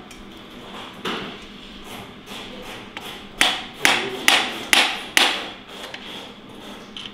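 Hammer blows: one knock about a second in, then a run of five sharp strikes over about two seconds.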